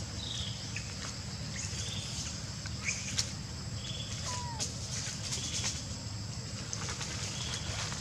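Outdoor ambience of a steady high insect drone, with a short bird chirp repeating every second or two and one brief falling whistle about halfway. A few faint clicks and a steady low rumble sit underneath.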